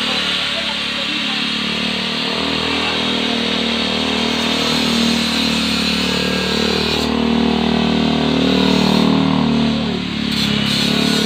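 Electric angle grinder cutting steel mesh and frame, its motor whining steadily under load over a harsh grinding hiss; the sound dips briefly near the end and picks up again.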